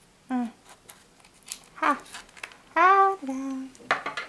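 A woman's short wordless vocal sounds, three in all, the last a two-part tone that drops and holds. Near the end comes the crinkle of plastic shrink-wrap on a CD case being handled.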